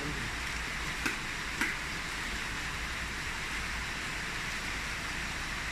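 Steady hissing background noise over a low hum, with two faint short clicks a little after one second in.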